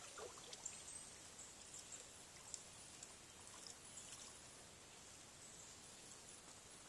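Near silence: faint outdoor hiss with a few soft ticks in the first second or so.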